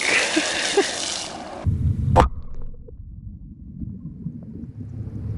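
Water thrown up by a .50 BMG round fired into a shallow creek splashing back down as a loud hiss. About two seconds in, through a GoPro's waterproof housing underwater, a sharp, muffled thump as the armor-piercing incendiary tracer round strikes the water, followed by a low, muffled rumble of bubbles.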